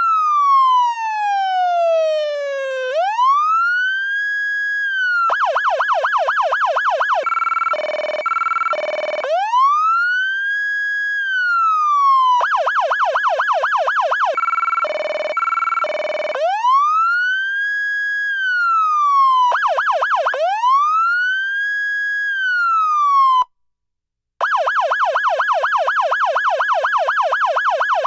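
Federal Signal Touchmaster Delta electronic siren cycling through its tones: a slow wail rising and falling, a fast yelp, and a stepped two-pitch priority tone, repeated several times. About three-quarters of the way through it cuts out for about a second, then comes back on a fast yelp.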